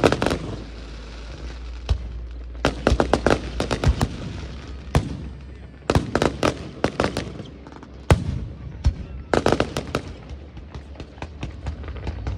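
Aerial firework shells bursting in quick volleys of sharp bangs and crackles, a new cluster every second or two.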